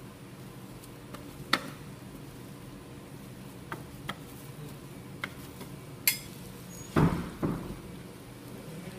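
Metal ice cream scraper working frozen mix on a steel cold plate: a few sharp clicks and taps of metal on the plate, then a louder scraping knock about seven seconds in, over a steady low hum.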